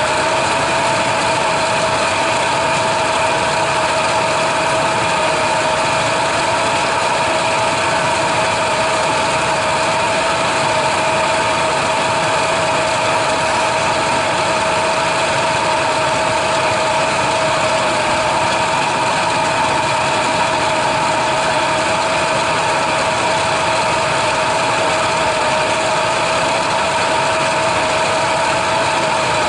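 Chevrolet S-10 pickup's engine running steadily, with a constant whine over it that holds one pitch throughout.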